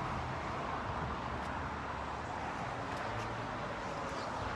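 Steady street ambience: an even noise with a low vehicle engine hum, and a few faint clicks.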